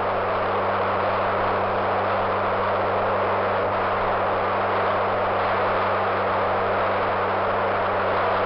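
Steady radio static hiss with a constant low hum, from the 1961 Vostok 1 air-to-ground radio link recording between Gagarin's transmissions.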